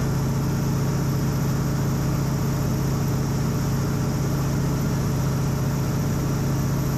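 North American Harvard's Pratt & Whitney R-1340 Wasp radial engine running steadily in cruise, heard from inside the cockpit over a steady rush of air.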